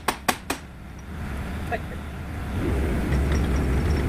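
Three sharp knocks right at the start. Then the Sumitomo SH75 mini excavator's diesel engine, running low underneath, picks up about two and a half seconds in to a louder, steady drone as it takes up hydraulic load to raise the boom carrying the newly fitted breaker.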